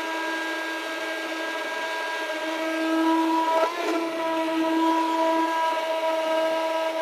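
Handheld electric stick blender running steadily in a large stainless steel pot, puréeing cooked onions, tomatoes and vegetables into a curry base gravy: a steady, high motor whine whose pitch briefly wavers about halfway through.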